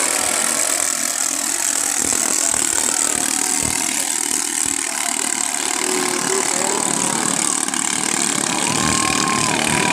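Several ketinting longtail boat engines running at once, small single-cylinder petrol engines whose overlapping pitches drone steadily, with a few pitches sliding up and down near the end.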